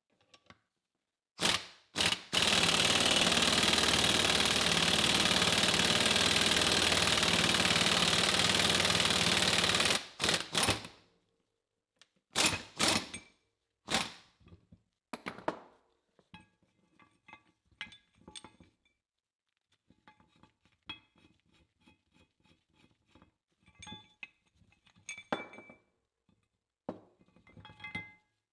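An air impact wrench hammers steadily for about eight seconds, driving the screw of a C-clamp ball joint press to push an old ball joint out of a steering knuckle, then cuts off abruptly. Scattered metal clanks and knocks follow as the press and knuckle are handled.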